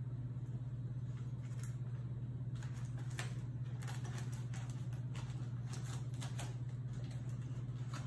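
A paper microwave popcorn bag crinkling and rustling in scattered short crackles as a dog chews and licks at it with its muzzle inside, heaviest in the middle of the stretch. The crackles sit over a steady low hum.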